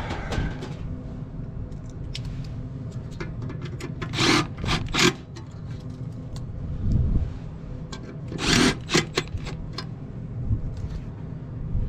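Hands working on metal furnace parts: short scraping and rubbing noises, loudest about four, five and eight and a half seconds in, with scattered light clicks over a steady low rumble.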